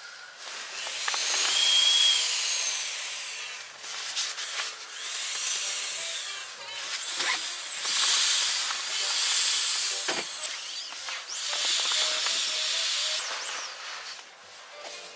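Air hissing out of the open valve of a self-inflating sleeping mat as it is rolled up and pressed down to squeeze it flat, in four long surges with a thin whistle at times.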